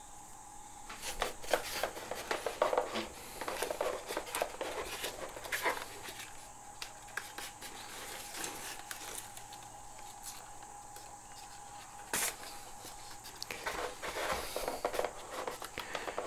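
Handling noise from a foam RC model airplane and small plastic zip ties: scattered clicks, taps and rustling as the fuselage is lifted, turned and set down, with one sharp click about twelve seconds in. A faint steady hum runs underneath.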